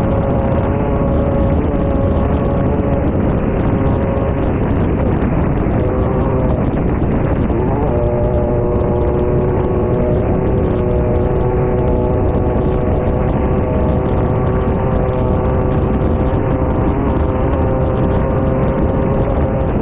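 Off-road race car's engine running hard and steady at speed, heard from inside the car over heavy wind and rough-ground rumble. About seven to eight seconds in the engine note shifts, then holds steady again.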